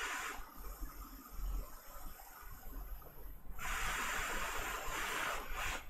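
Soft hiss of moving air in two stretches, a short one at the start and a longer one of about two seconds from just past the middle, over a faint low hum.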